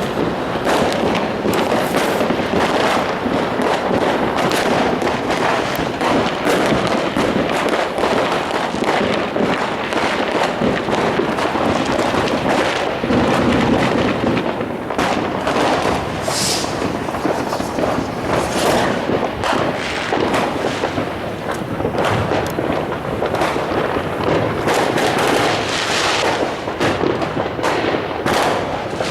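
Fireworks going off without pause: a dense, continuous run of bangs and crackling.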